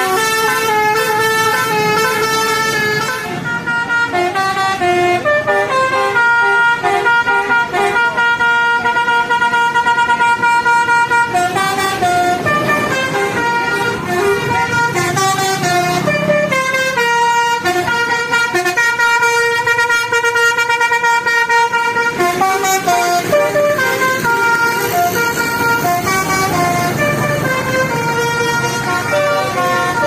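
Indonesian tour buses' 'telolet basuri' musical air horns playing melodic tunes, one pitched note after another, over the low rumble of engines and traffic.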